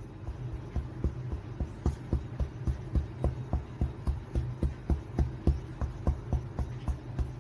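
Boiled chicken breast being pounded with a wooden pounder on a plastic cutting board: repeated dull thuds, about four a second, as the meat is crushed into shreds.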